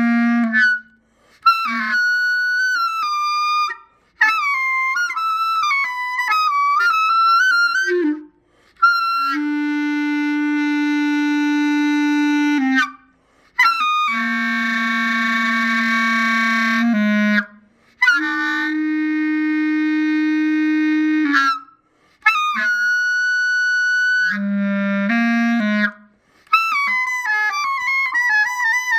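Solo clarinet imitating a satellite noise: about eight short phrases with brief breaks between them, sliding and wavering pitches at first, then long held low notes in the middle, then high sliding notes near the end.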